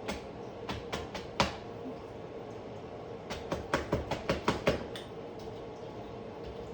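Light knocks and clicks of kitchen utensils against pans and bowls: a few scattered in the first second and a half, then a quick run of about ten in the middle, over a steady faint hum.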